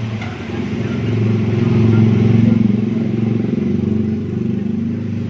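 A motor running with a low, steady hum that swells to its loudest about two seconds in, then eases off a little.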